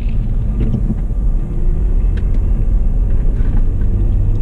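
Steady low rumble of a car on the move, engine and road noise heard from inside the cabin, with a few faint ticks.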